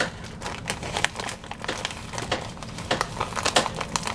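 Plastic food packaging crinkling in irregular bursts as it is handled, with light clicks and rustles.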